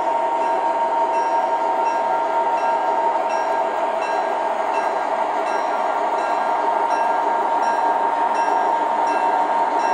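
O scale model train with diesel locomotives pushing a snowplow, running along the track: a steady hum and whine with a light clicking about twice a second.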